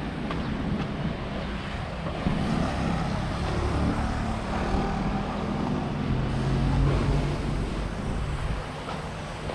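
An engine running close by and passing: a low hum that builds about two seconds in and fades near the end, over wind noise on the microphone.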